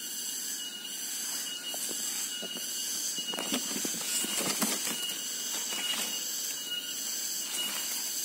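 A steady, high-pitched chorus of insects, with a shrill note pulsing on and off over it. About three to five seconds in there is rustling as a hand handles the vine's leaves.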